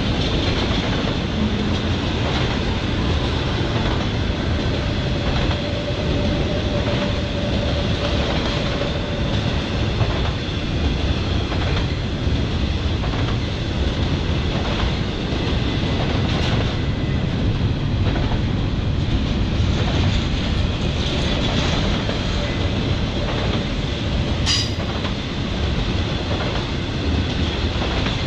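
CSX intermodal freight train's well cars rolling steadily past, steel wheels clicking over the rail joints, with one sharp click about three-quarters of the way through.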